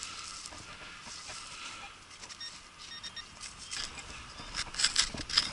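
Digging into hard soil to recover a detector target: scrapes and sharp clicks of dirt and stones, louder and more frequent near the end.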